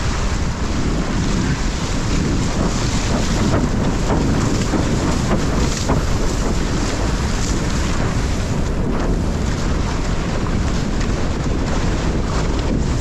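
Steady wind noise buffeting a GoPro's microphone, over the rush of water along a windsurf board sailing through the surf.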